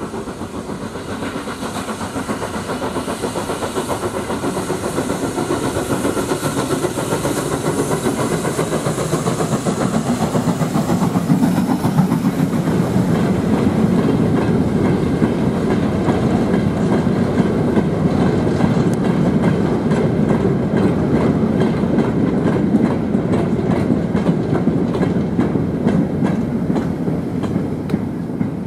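J94 0-6-0 saddle-tank steam locomotive working a freight of steel mineral wagons: its exhaust grows louder as it approaches and passes. Then the long rake of wagons rumbles and clatters by on the rails, easing off near the end.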